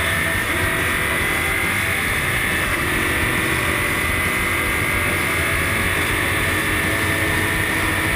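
Onboard sound of an LMPC prototype race car at speed: its Chevrolet V8 running hard under heavy wind and road noise. A high whine climbs slowly over the first couple of seconds, then holds steady.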